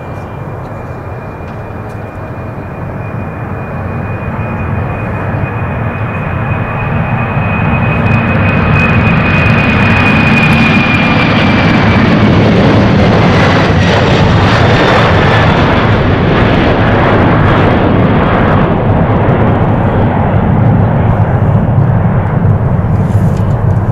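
Boeing 747-400's four turbofan engines at takeoff power, the jet roar growing louder as the airliner accelerates down the runway toward the listener. A high fan whine drops in pitch about ten seconds in as it passes and lifts off, leaving a steady heavy roar as it climbs away.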